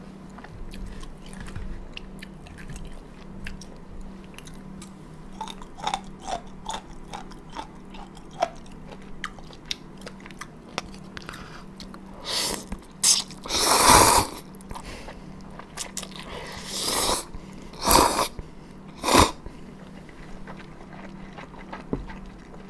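Close-miked eating of buckwheat noodles: small wet chewing clicks for the first ten seconds or so, then about half a dozen loud slurps in quick succession, the longest lasting about a second, with chewing in between.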